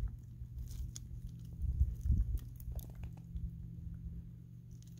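Puppy chewing and biting on a small tree's branches, with scattered short cracks and crunches of wood, busiest and loudest about two seconds in, over a steady low hum.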